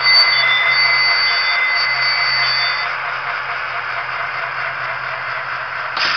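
Sound decoder of a Broadway Limited Imports N scale E8 diesel model sounding its multi-note horn for about three seconds, over the continuous running sound of its diesel engine, heard through the model's small speaker.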